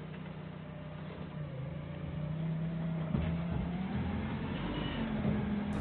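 Doosan 4.5-ton forklift's engine running, revving up about a second and a half in as the mast is worked under load, with a faint whine that rises in pitch with it.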